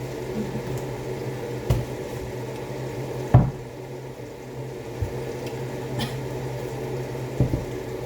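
A switched-on electric kitchen oven running with a steady low hum, which the owner finds very loud and takes as a sign that something is wrong with the oven. A few short knocks and clicks sound over it, the loudest about three and a half seconds in.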